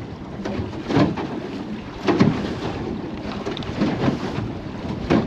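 Wind buffeting the microphone aboard a fishing boat at sea, a steady rush with several irregular louder gusts.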